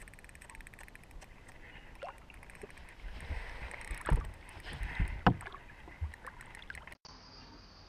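Handling noise in a small fishing boat: a few hard thumps and knocks against the boat, the loudest about four to five seconds in, over a faint steady hiss.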